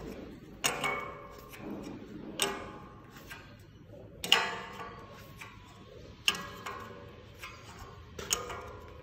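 Metal-on-metal taps on steel, each with a short metallic ring: about five sharper strikes roughly two seconds apart, with fainter clicks between, during layout marking of steel stair parts.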